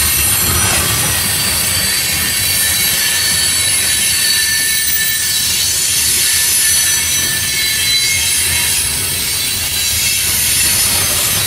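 Freight train of CSX coal cars rolling steadily past, with a low rumble of wheels on rail and a high-pitched squeal of wheels against the rail.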